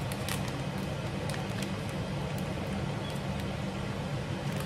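A steady low hum with an even hiss underneath, and a couple of faint clicks about a third of a second in.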